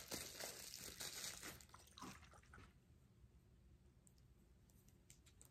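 Faint crinkling and crackling of clear plastic wrapping as it is pulled off a small glass bottle, fading out about halfway through into near silence.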